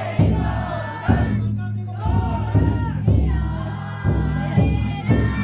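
Carriers of a futon daiko drum float chanting together while the float's big taiko drum is struck about once a second.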